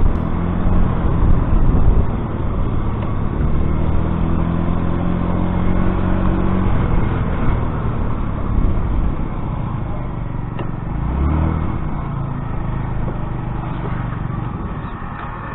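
Yamaha Vino scooter engine running under way, with steady road and wind noise; the engine pitch rises for a few seconds before dropping back.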